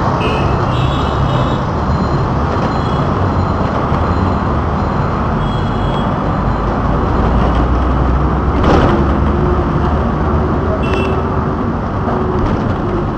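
Steady engine and road rumble of a moving vehicle in city traffic. A few short high beeps come through now and then, and there is one sharp knock about nine seconds in.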